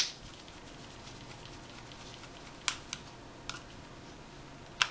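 Small sharp clicks and taps of a precision screwdriver and tiny screws against a Sony DSC-H55 compact camera's body as its bottom screws are taken out. There is one loud click at the start, a couple more in the middle and a loud pair near the end.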